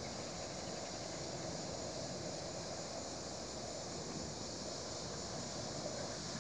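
A steady, high, hiss-like insect chorus, with a faint low rumble beneath it.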